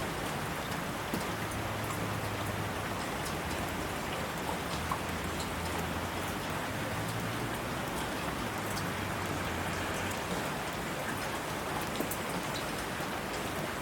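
Steady rain falling on a surface: an even hiss with scattered drop ticks, over a faint low rumble.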